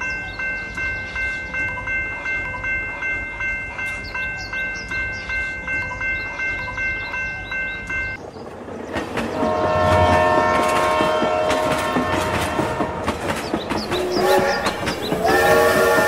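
Railway level-crossing warning signal ringing steadily, pulsing about three times a second, for about eight seconds and then stopping. A train follows: a steam-locomotive whistle sounds in long multi-note blasts over a clatter of wheels on rails.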